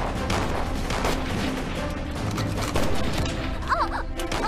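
Film battle soundtrack: repeated gunfire shots crackling in volleys over dramatic background music.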